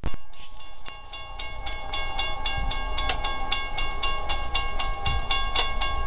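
Railroad grade-crossing warning bell ringing, about four strikes a second, as the crossing gates come down: the warning for an approaching train.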